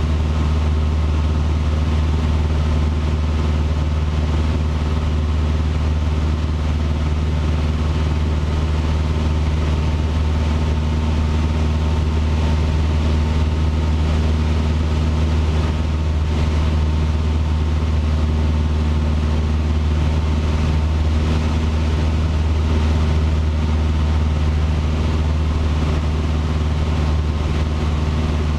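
Cessna 150's four-cylinder Continental O-200 engine and propeller droning steadily in flight, heard inside the cabin: a constant deep hum with no change in power.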